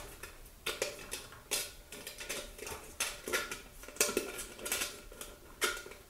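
Irregular metallic clicks, clinks and short scrapes as a screwdriver and fingers work the metal clips of a recessed light housing into a ceiling hole, the clip binding because the double layer of sheetrock is so thick.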